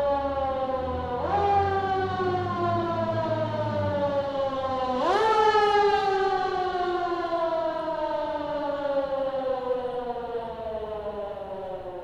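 A motor-driven mechanical siren winding up quickly three times, each rise followed by a long, slow fall in pitch as it coasts down. A low rumble runs under it for the first few seconds.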